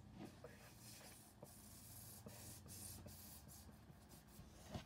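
Near silence: faint room hiss with a few small, soft clicks.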